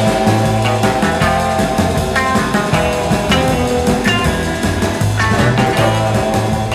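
Upbeat rock background music with electric guitar, bass and drums, at a steady beat.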